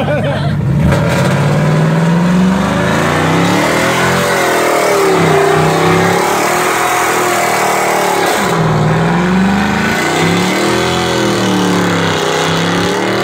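International Harvester pickup truck doing a burnout: the engine is revved hard, its pitch rising and falling several times and dropping sharply about two-thirds of the way through before climbing again. The rear tyres spin on the pavement, adding a loud hiss.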